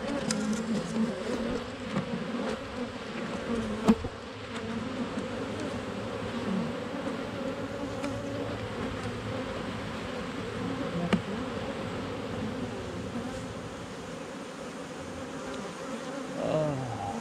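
Honeybees buzzing steadily around an open hive as its frames are inspected. A couple of sharp knocks cut through the hum, the loudest about four seconds in and another near eleven seconds.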